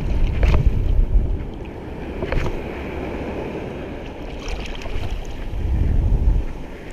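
Wind buffeting the microphone over the wash of sea surf, with gusts swelling near the start and again late on, and a few faint clicks.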